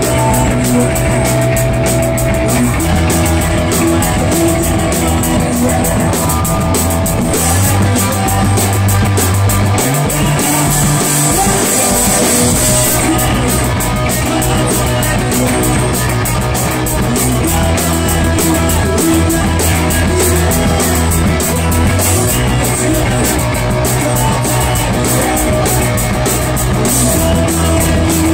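Live rock band playing loud: electric bass, drum kit and electric guitar with a singer. The bass line steps from note to note over steady drum and cymbal hits, and the bass thins out for a few seconds near the middle under a wash of cymbals.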